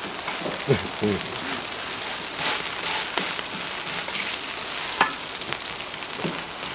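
Grated old-pumpkin pancakes sizzling and spitting in hot oil on a cauldron-lid griddle. There are occasional scrapes as spatulas press and turn them, and a spatula taps the griddle about five seconds in.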